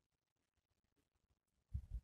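Near silence: room tone, with one brief, low, muffled thump near the end.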